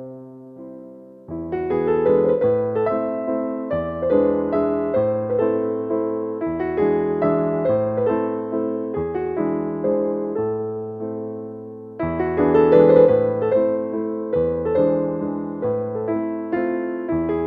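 Calm piano music: struck notes ringing out and fading. The playing grows fuller about a second in and swells again about twelve seconds in.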